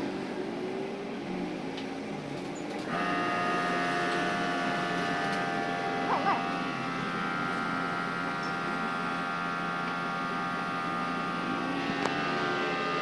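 A motor-driven machine, most likely the paint shop's air compressor, switches on about three seconds in and runs with a steady multi-tone whine and hum to the end.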